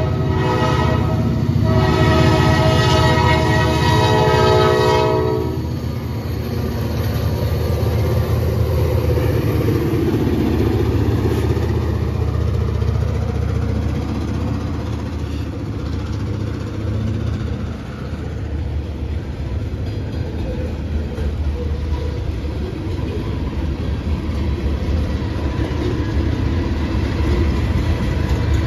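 Paducah & Louisville Railway diesel freight locomotives sounding their horn at a grade crossing, a short blast then a long one that cuts off about five seconds in. The locomotives' engines then rumble past, followed by coal hopper cars rolling by with steady wheel-on-rail noise and clickety-clack.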